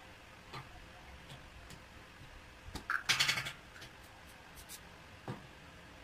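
Small tool parts handled on a steel workbench: a few light clicks, a short scraping rattle of metal about three seconds in, and a single knock near the end.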